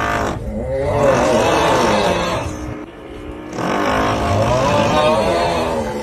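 Meme snoring sound effect: a loud, drawn-out groaning 'uuuugh' snore over the noise of a drill. There are two long groans: the first breaks off a little before halfway, and the second fades out near the end.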